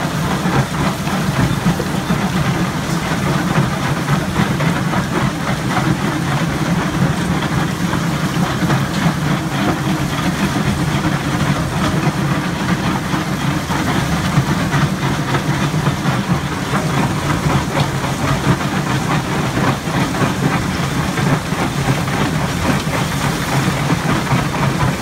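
Syntron SyntroFlo vibrating feeder pan shaking crushed rock over its lip into a crusher's feed hopper: a steady low machine hum under a continuous clatter of tumbling stones.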